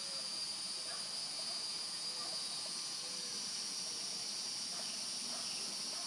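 Steady high-pitched insect chorus, an even buzz with no pauses, with a few faint short chirps underneath.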